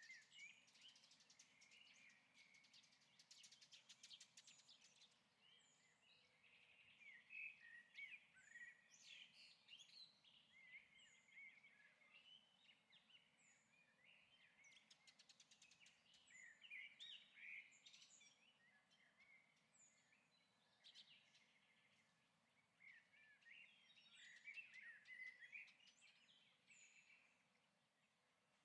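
Faint birdsong: several birds chirping and twittering in bursts, with quick trills and short high chirps repeated at even spacing.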